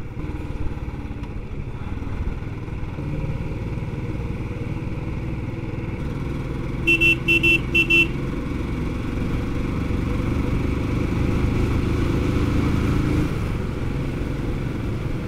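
Motorcycle carrying three riders, its engine running steadily at road speed with wind noise on the helmet microphone. About seven seconds in, a vehicle horn gives four quick short toots.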